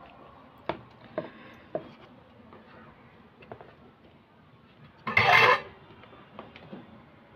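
Small metal parts and wires of an LED lamp being handled while its connections are made: a few light clicks and taps, then a brief louder scraping rattle about five seconds in.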